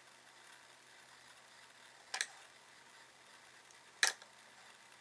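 Quiet room with a faint steady hum, broken by two short clicks about two seconds apart.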